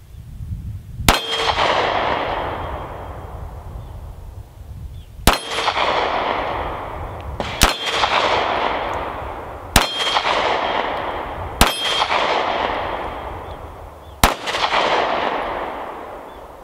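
Six pistol shots from a magazine-fed semi-automatic handgun, fired one at a time at an uneven pace about two seconds apart. Each crack is followed by a long echo that fades away.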